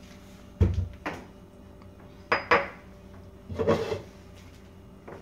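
Kitchenware being handled and set down: several separate knocks and clatters, the first a heavy thump about half a second in, over a faint steady hum.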